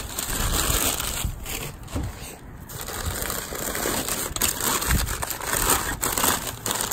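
Crumpled packing paper crinkling and crackling as hands unwrap an object wrapped in it, with a short lull about two and a half seconds in.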